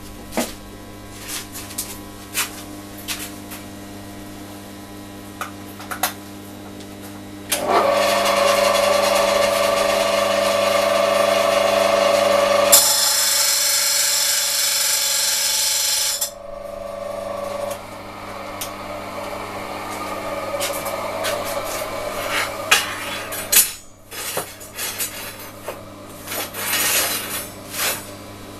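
Steel rod being worked with tools: a few sharp taps on metal at first. Then an electric power tool runs for about nine seconds, turning harsher and hissier partway through as it works the metal, and cuts off with a short spin-down. After it come scraping and clinks of metal rods being handled, over a low steady hum.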